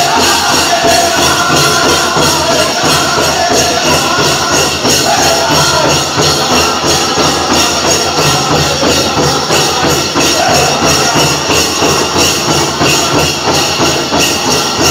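Pow wow drum group singing over an even beat on a large powwow drum, with the chicken dancers' leg bells jingling in time.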